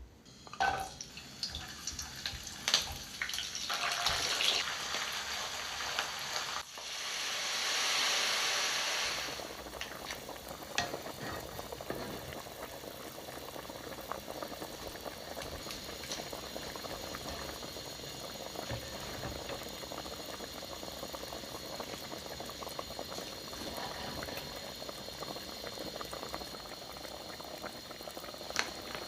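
A pot of liquid boiling with a steady bubbling. Over the first few seconds there are scattered clinks and knocks, and about seven seconds in a loud hiss swells and fades before the even boiling takes over.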